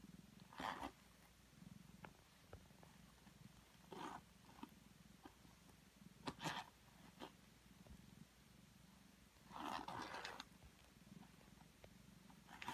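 Domestic cat purring softly and steadily, the purr swelling and easing with its breaths. A few brief rustling noises stand out over it, the loudest a longer one about ten seconds in.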